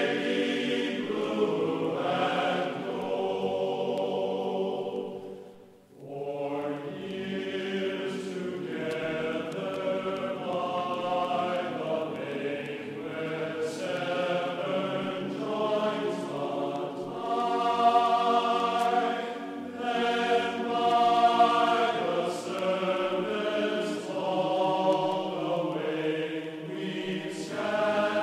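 Background music with singing. It fades almost to nothing about six seconds in, then a new sung passage begins.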